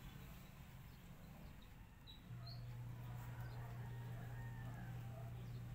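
Faint steady low hum that swells about two seconds in, with a few faint short high chirps.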